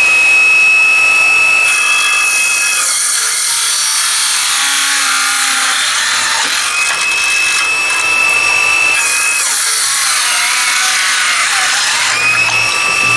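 DeWalt 12V XTREME 5-3/8-inch brushless cordless circular saw running with a high, steady whine and cross-cutting a 2x4 twice. Each cut lasts about three to four seconds and turns the whine into a rough ripping noise. The first cut starts about three seconds in, the second about nine seconds in, and the saw runs free in between and afterwards.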